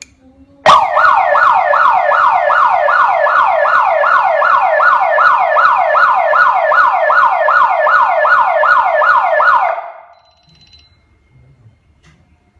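Fire alarm sounder being test-fired, sounding loudly in quick sweeps that fall in pitch, nearly three a second. It starts abruptly about a second in and stops about ten seconds in.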